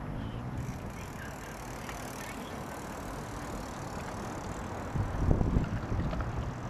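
Outdoor background noise: a steady low rumble with a hiss over it, growing louder and uneven about five seconds in.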